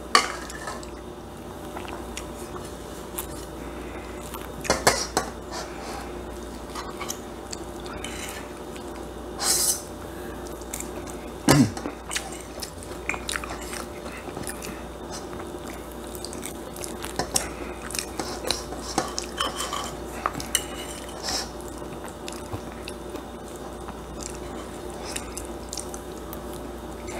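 Metal fork and serving utensil clinking and scraping against a plate and a stainless steel pan as shepherd's pie is served and eaten, with scattered taps throughout and a few louder clinks, along with chewing.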